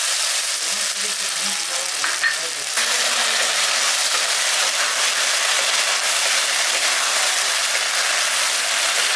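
Cornflour water sizzling in a hot non-stick kadai of chilli sauce and fried mushroom pakoras, the gravy frying with a steady hiss while a wooden spatula stirs it. The sizzle gets a little louder about three seconds in.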